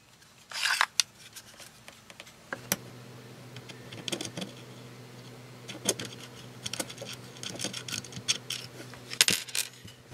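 Irregular small clicks, taps and scrapes of a metal tool and hard plastic as a handheld two-way radio is taken apart by hand, with a short scraping noise about a second in and a quick run of clicks near the end. A faint steady hum sits underneath from a few seconds in.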